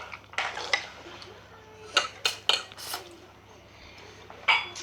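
Spoons and forks clinking and scraping against bowls and plates while eating noodles. The clinks are sharp and irregular, with a cluster about two seconds in and a louder one near the end.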